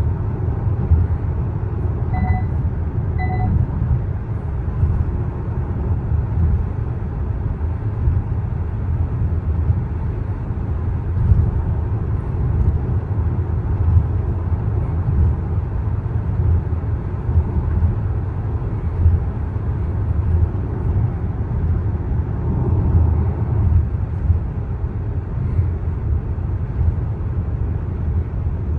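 Steady low road and tyre rumble heard inside a Hyundai Palisade's cabin while cruising on a toll highway. About two seconds in, two short electronic beeps sound about a second apart.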